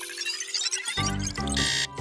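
Cartoon sound effects over background music: a sparkling twinkle while the radar scans, then about a second in a pulsing electronic warning alarm starts, beeping in quick repeats.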